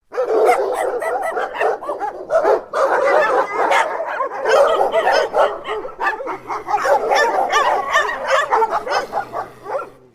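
Dog barking and yipping in rapid, densely overlapping barks, dying down near the end.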